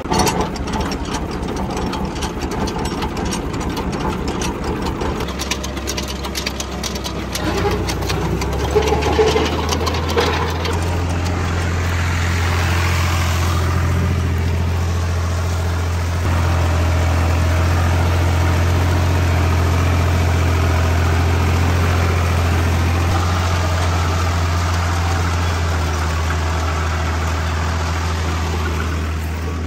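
Heavy diesel engine running with a fast clatter at first; from about seven seconds in its note deepens and becomes a louder, steady drone.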